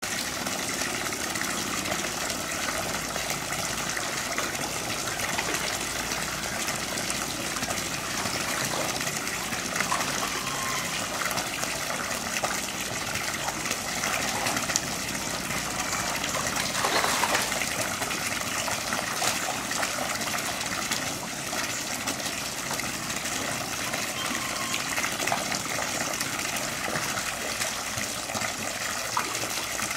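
Steady gushing and splashing of water in a small concrete pool as Asian small-clawed otters swim and play in it.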